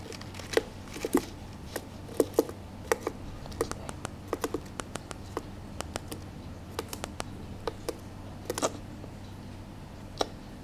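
Irregular light clicks and taps on a hard, smooth floor, sometimes one alone and sometimes a few in quick succession, over a faint steady low hum.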